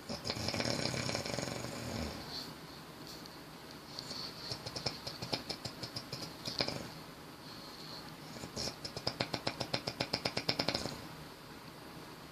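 Snoring: a long noisy breath in the first two seconds, then two spells of rapid rattling pulses, about six a second, one from about four to seven seconds in and one from about nine to eleven seconds in.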